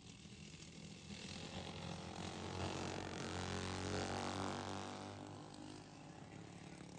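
Racing lawnmower engines passing by at speed, growing louder to a peak about three to four seconds in, then fading.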